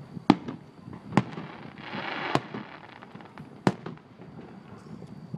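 Aerial fireworks shells bursting: four sharp bangs at uneven intervals of about one to one and a half seconds, with a short hissing crackle around two seconds in.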